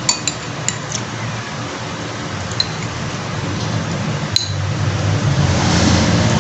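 Metal spoon clinking against a glass soup bowl, about six light clinks spread unevenly, each with a short bright ring. A low hum builds up in the last couple of seconds.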